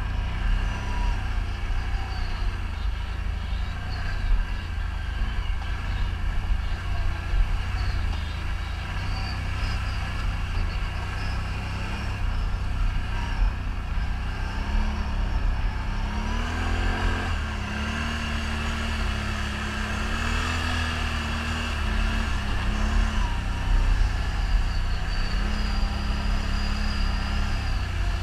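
ATV engine running under way, its pitch rising and falling repeatedly with the throttle, over a steady low rumble.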